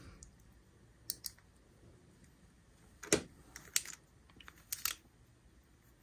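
Scattered small clicks and taps, some in quick pairs, of metal parts and a screwdriver against a Kershaw Chive pocket knife's metal handle as a tiny screw is started during reassembly.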